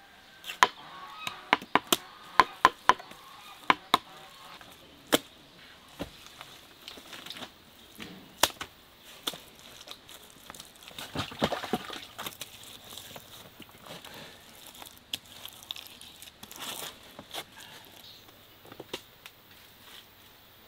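Hand work on a clay mud oven under construction: irregular sharp taps and knocks, many in the first few seconds, with a stretch of scraping and rustling of mud around the middle.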